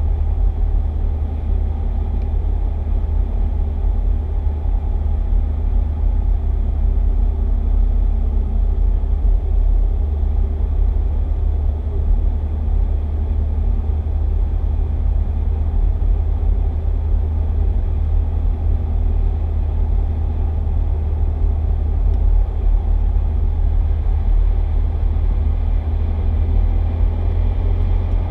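Steady low rumble of a car cruising on a motorway, heard from inside the cabin: engine and tyre noise on the road surface.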